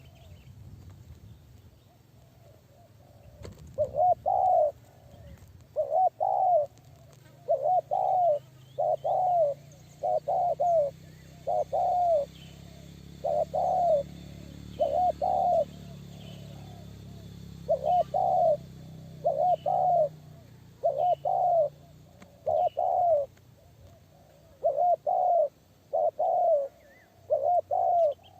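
Spotted dove (tekukur) calling as a decoy, repeating loud two-part coos about every second and a half from a few seconds in, with a short break in the middle.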